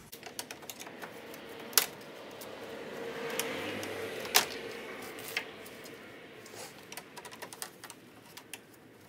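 Screwdrivers prying plastic push clips out of an R56 Mini Cooper S's lower grille trim: scraping plastic and a string of small clicks, with two sharp snaps about two and a half seconds apart.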